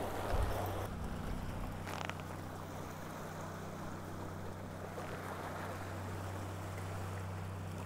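A steady low engine hum over a light wash of wind and water noise, with a higher layer of the hum coming in about a second in.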